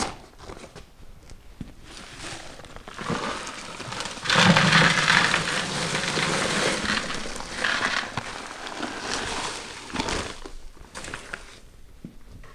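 Paper bag of dry pre-mixed concrete crinkling as it is handled, then the dry mix poured into a plastic five-gallon pail in a dense rush lasting about three seconds, starting about four seconds in. More rustling of the paper bag follows.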